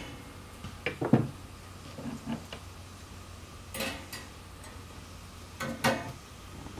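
Metal tongs and the wire cooking basket of an oil-less turkey fryer clinking and rattling as food is handled on it: a few short sharp clinks, the loudest about a second in and again near six seconds.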